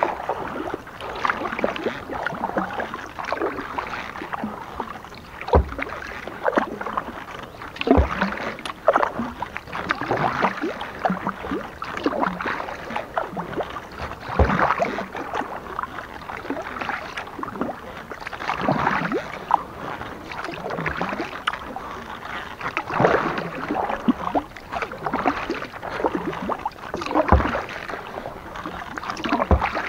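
Kayak paddling: the paddle blades splash into the water stroke after stroke, with a few dull knocks.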